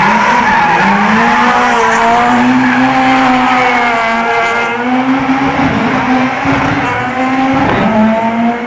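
Rally car engine revving hard as it drives, its pitch climbing and dropping several times.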